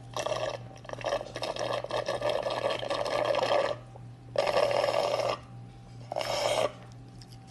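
A person slurping a drink from a cup three times: a long slurp of about three and a half seconds, then a one-second slurp, then a short one near the end.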